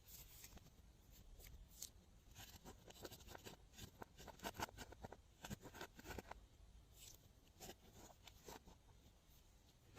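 Glossy slime being worked by hand, giving faint sticky clicks and squelching crackles in quick clusters, busiest in the middle.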